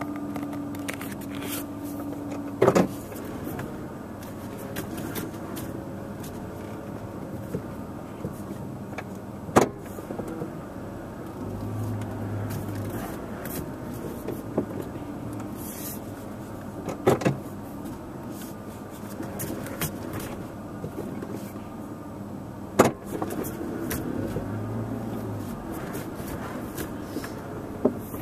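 Steady background rumble and hiss, broken by scattered sharp clicks and a few louder knocks, about four over the span: handling noise as the camera is turned.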